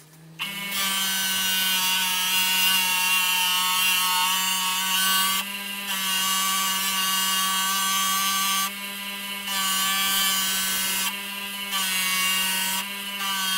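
Bench grinder fitted with a buffing wheel, spinning up about half a second in and then running at a steady hum while a nakiri knife blade is buffed against the wheel. The hiss of the blade on the wheel cuts out briefly four times as the blade is lifted off and set back on.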